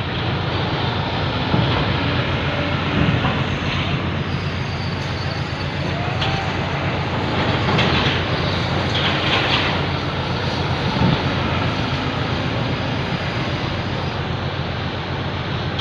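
Steady low rumble of a ferry's engines running under way, heard aboard as an even, continuous noise with a low hum.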